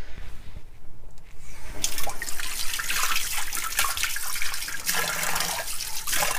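Tap running, the water splashing into a ceramic sink; it comes on about two seconds in.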